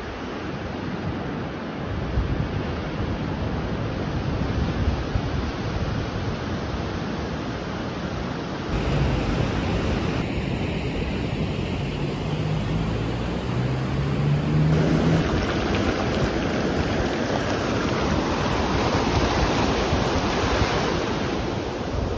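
Sea waves breaking and foamy surf washing up a sandy beach, a steady rushing wash, with wind buffeting the microphone.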